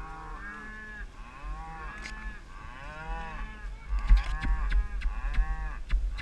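A herd of cattle mooing, many long, overlapping calls at once. From about four seconds in, sharp clicks and low thumps come in over the lowing.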